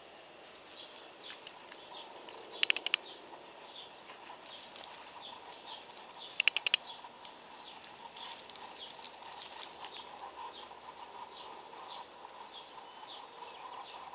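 Small birds chirping repeatedly in the background, with two quick runs of four or five sharp clicks, about three and six and a half seconds in, standing out as the loudest sounds.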